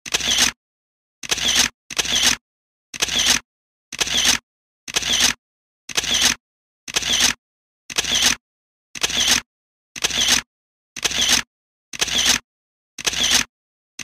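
Camera shutter sound effect repeated about once a second, each short shutter sound separated by dead silence.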